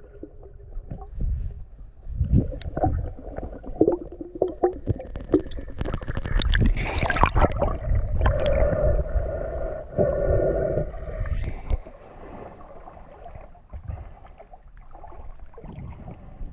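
Underwater sound on a snorkeler's GoPro in spring water: a muffled rush and gurgle of water with many small clicks and knocks, heaviest in the middle. A muffled held tone runs for a couple of seconds past the middle.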